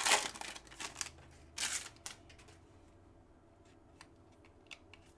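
Football trading cards being handled and slid across one another: two short rustles in the first two seconds, then a few faint clicks as the cards are flipped.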